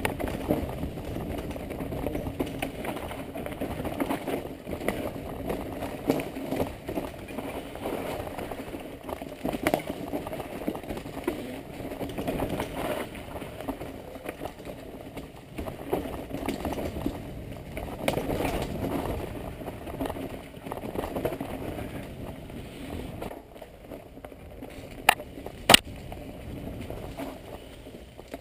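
Mountain bike riding down a leaf-covered forest trail: a steady rumble of tyres over dry leaves and dirt, with the bike rattling and clicking over bumps. Near the end it quietens, then two sharp clicks come close together.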